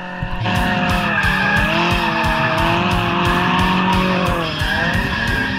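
Nissan 240SX (S13) drift car with SR20DET swap, its engine revving through a drift with tyre squeal, the pitch dipping and climbing back twice. Background music with a steady beat plays over it.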